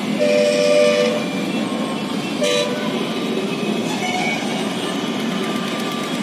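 Steady road traffic noise, with a horn honking for about a second near the start and briefly again about two and a half seconds in.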